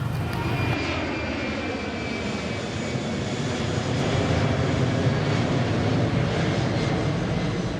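Steady, loud roar of a jet airliner's engines.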